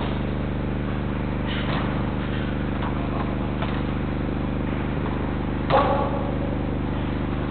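Steady low electrical hum heard through the pitch camera's microphone, with faint distant sounds from the players on the indoor pitch and one brief louder burst about six seconds in.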